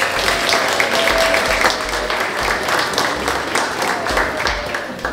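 A roomful of people applauding, with dense, overlapping hand claps that taper off near the end.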